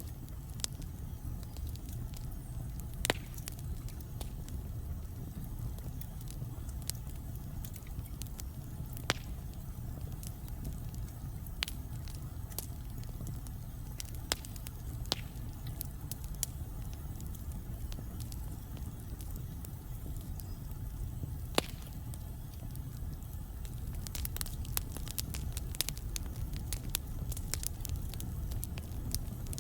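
Wood logs burning in a fireplace: a steady low rumble of flames with scattered crackles and a few sharp, louder pops, the crackling growing denser near the end.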